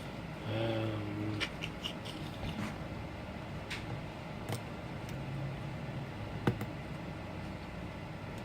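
Scattered light clicks and taps from small-parts work, the sharpest about six and a half seconds in, over a steady low hum. A short buzzing tone sounds about half a second in.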